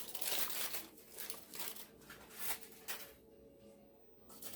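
Rustling and crinkling of foil as cut gingerbread house pieces are sorted and handled, in several short bouts.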